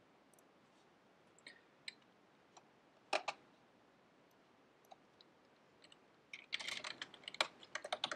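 A few sharp mouse clicks, the loudest a close pair about three seconds in, then a quick burst of typing on a computer keyboard from about six and a half seconds in as a short terminal command is entered.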